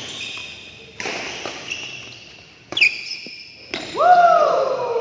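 Badminton rally: three crisp racket strikes on a shuttlecock, each with a brief ringing ping from the strings, in a large echoing hall. Near the end a loud drawn-out call falls in pitch over the play.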